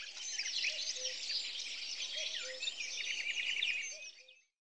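A dense chorus of many birds singing at once: overlapping chirps, whistles and trills, with a fast rattling trill in the middle. It fades out near the end.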